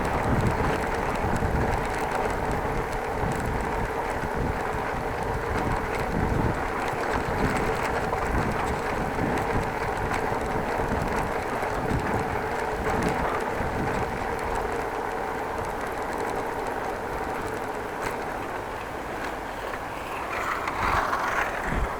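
Running noise of a bicycle on the move: wind rumbling on the microphone under a steady whine, briefly louder near the end.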